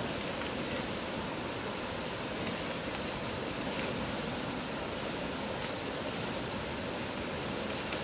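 Fast mountain river rushing over a rocky bed: a steady, full rush of water.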